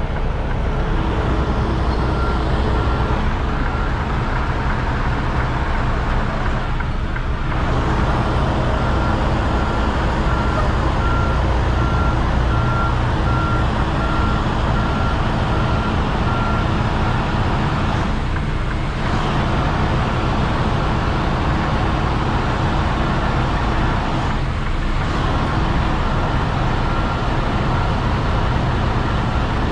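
Diesel engine of a Freightliner Cascadia semi truck rumbling at low speed while backing a trailer. A high, evenly repeating reversing beeper sounds over it for much of the time, stopping for a stretch and coming back near the end.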